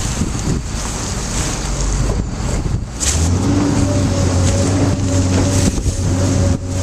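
Wind buffeting the microphone over machine noise, then about three seconds in a steady pitched hum with a low tone and higher overtones sets in and holds: a V500 mill-size baler's hydraulic power unit running under load.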